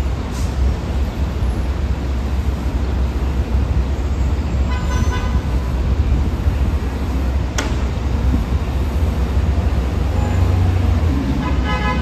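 Busy street traffic with buses and cars, a steady low rumble throughout. A vehicle horn honks briefly about five seconds in and again near the end, and a single sharp clack sounds about halfway through.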